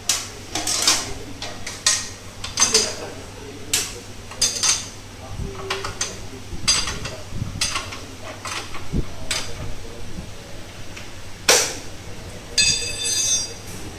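Steel hand tools and bolts clinking and clanking against each other and the concrete floor as they are picked up and set down: a dozen or so separate knocks, the loudest about eleven and a half seconds in, then a short ringing metallic clatter near the end.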